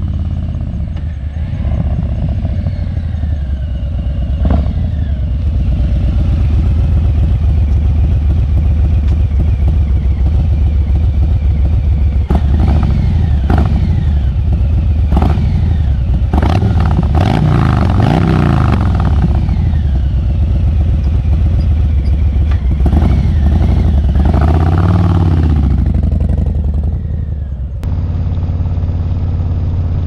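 Harley-Davidson Milwaukee-Eight 117 V-twin running through TAB Performance slip-on mufflers. It rides up and revs with a deep rumble, the engine pitch rising and falling, and a few sharp cracks come in the middle. Near the end the sound changes abruptly to steady engine and wind noise heard from the rider's seat at speed.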